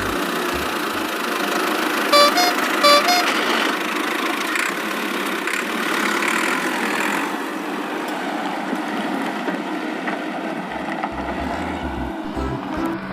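Vehicle engine sound effect running steadily, with two short horn beeps about two and three seconds in.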